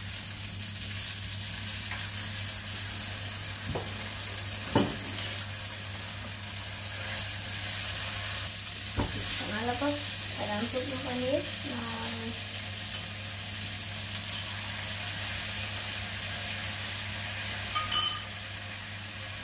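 Spaghetti and shrimp sizzling in a hot nonstick wok, stirred and tossed with a spatula, with a few knocks of the spatula against the pan, the loudest near the end.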